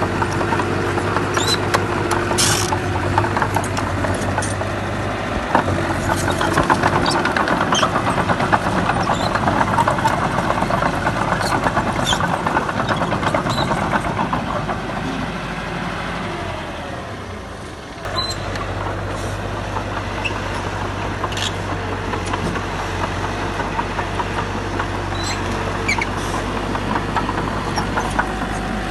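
Diesel engine of a crawler bulldozer working steadily, with scattered sharp clanks and knocks of metal and stone. The sound changes abruptly about two-thirds of the way through.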